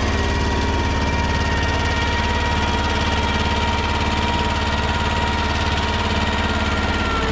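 Kubota compact tractor's diesel engine running steadily as it pulls a two-furrow plough and packer through the soil, with an even engine note and a steady high whine over it.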